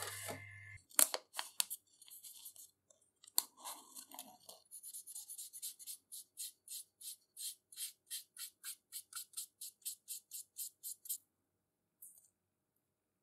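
Black permanent marker rubbed back and forth over an aluminium plate: a long run of short scratchy strokes, about three to four a second, that stop a couple of seconds before the end. Just before them, a laminator's motor hum cuts off under a second in, followed by a few sharp clicks.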